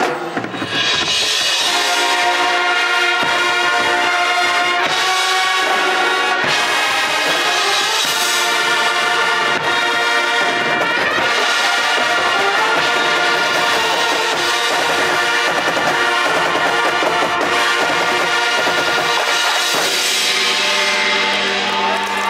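High school marching band playing a loud brass-led piece, with sousaphones, trumpets and trombones over marimbas and drums. Near the end the band is winding down as cheering starts.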